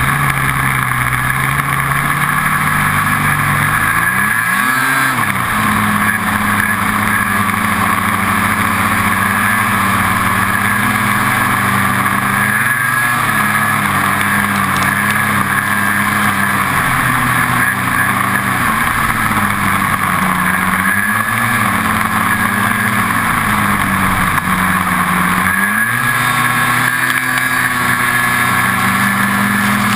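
Ski-Doo snowmobile's two-stroke engine running under way, heard from the sled itself. Its revs rise and fall several times as the throttle is worked, with a quick rev-up about five seconds in.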